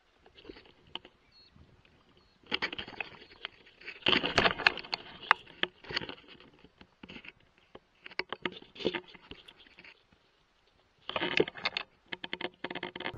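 Footsteps crunching and scraping through dry grass and leaf litter, with brush rustling against clothing and gear. They come in irregular bursts: about two and a half seconds in, again around eight seconds, and near the end, with quiet pauses between.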